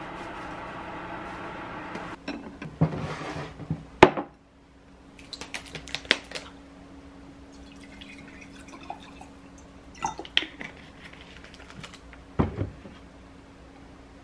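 Tableware handling: clinks and knocks of a glass bowl and utensils, with a sharp knock about four seconds in, and water poured from a plastic bottle into a glass around the middle. A steady hum runs under the first two seconds.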